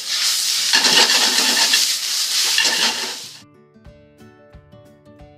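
Yakisoba noodles stir-fried in a frying pan, sizzling loudly in surges as the pan is tossed and worked with a spatula. The frying cuts off suddenly about three and a half seconds in, giving way to light instrumental music.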